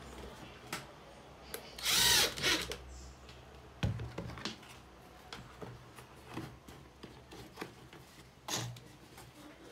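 Makita 18V cordless impact driver running a small screw through bicycle-tyre rubber into wood in one short burst about two seconds in. Scattered short knocks and clicks come from handling the rubber and frame.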